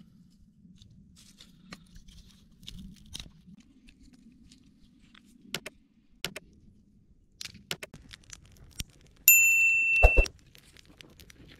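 Scattered light clicks and clinks of metal, then about nine seconds in a loud, high metallic ring lasting about a second that stops suddenly with a heavy thump.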